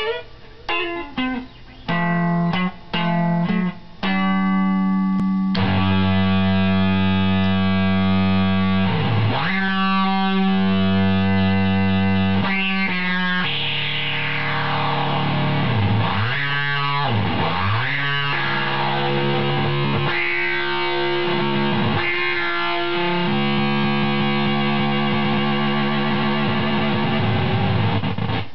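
Electric guitar played through a SubDecay Noise Box fuzz pedal, heavily distorted. Short choppy notes for the first few seconds, then long sustained notes with repeated swooping sweeps down and back up in pitch.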